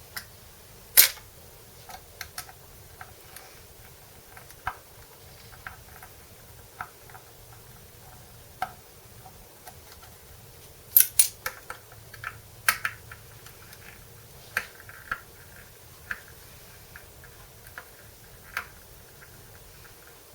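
Scattered clicks and light taps of small screws, hardware and tools being handled while an electric guitar is taken apart, with one sharp click about a second in and a quick cluster of clicks about halfway through.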